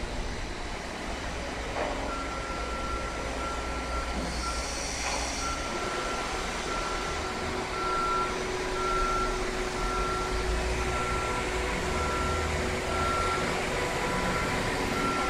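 A construction vehicle's warning beeper sounding repeated short beeps of one pitch, a little under a second apart, starting about two seconds in, over a low rumble of site machinery and traffic.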